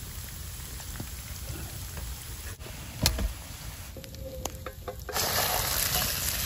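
Chicken sizzling in a frying pan over a campfire, with a few sharp crackles. About five seconds in, sauce poured into the hot pan sets off a much louder sizzle.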